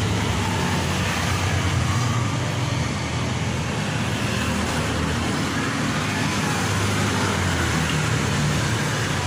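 Steady road traffic noise: a continuous low rumble under a wide hiss, with no separate distinct sounds standing out.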